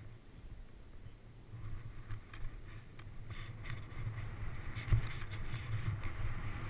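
Wind rushing over a helmet-mounted camera's microphone as a snowboard slides down through powder snow. The rush grows louder from about a second and a half in as the board picks up speed, with a few short scrapes and knocks.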